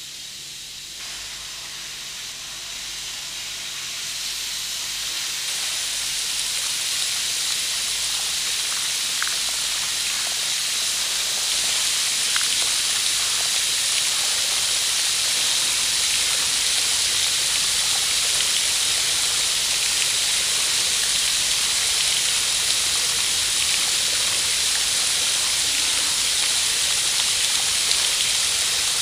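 Fountain jets spraying and splashing, a steady rushing hiss that starts suddenly and grows louder in steps over the first ten seconds or so, then holds.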